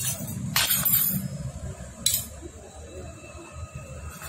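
Small metal motorcycle-engine parts clinking against each other as they are handled and fitted. A few sharp clinks, the loudest about a second in, another about two seconds in.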